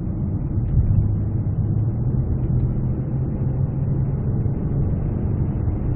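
Engine and road noise heard inside the cabin of a moving Genesis G330 sedan with its 3.3-litre petrol V6: a steady low hum that swells a little about a second in.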